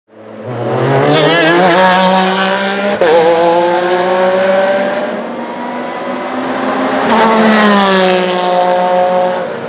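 Porsche 911 RSR (991) racing car's mid-mounted 4-litre flat-six engine running hard at race speed. Its pitch climbs, jumps abruptly about three seconds in, then rises again and falls away near the end.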